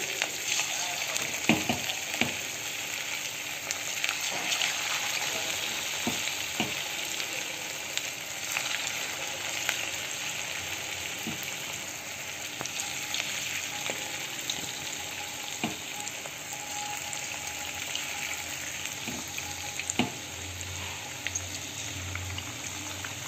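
Battered chicken pieces deep-frying in hot refined oil in a kadai: steady sizzling with scattered crackles and pops as more pieces are dropped in one by one.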